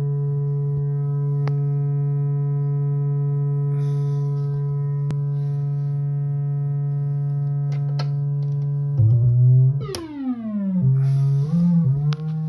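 Mutable Instruments Plaits synthesizer voice sounding one steady buzzy tone with strong overtones, its FM input fed by a static voltage processed through the Razcalito module. From about nine seconds in the pitch jumps, dives in a quick downward sweep and then steps up and down.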